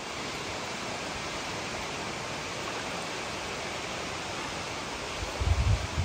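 Fast-flowing mountain river rushing over a stony bed, a steady rush of water. Near the end, low buffeting from wind on the microphone.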